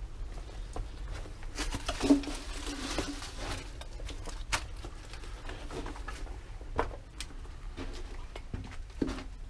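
Shuffling, scraping and irregular knocks of a person crawling through a low, narrow tunnel, with a longer rustling scrape about two seconds in and a few sharper knocks after it.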